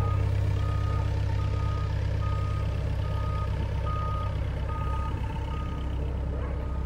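A Bobcat machine's backup alarm beeping steadily, a short single-pitch beep a little more than once a second, over the constant drone of its diesel engine running.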